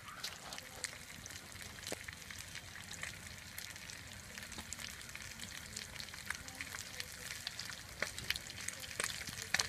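Whole fish frying in a pan of hot oil: a steady sizzle with frequent small, irregular pops and crackles.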